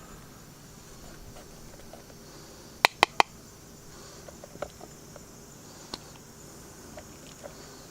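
Three sharp clicks in quick succession about three seconds in, with scattered lighter ticks, over a steady high-pitched insect drone.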